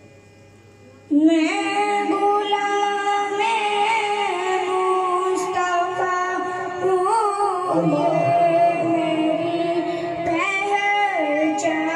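A boy singing a naat into a microphone over a PA system, starting abruptly about a second in with long, held notes that waver in pitch.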